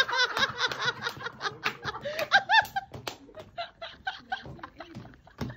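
A person laughing: a long run of short, rhythmic laughs, with a high squeal about two and a half seconds in, growing quieter toward the end.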